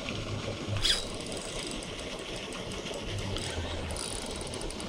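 Fishing reel being cranked in quick, even ticks over the steady rush of river water, as the angler reels against a bite on his worm rig.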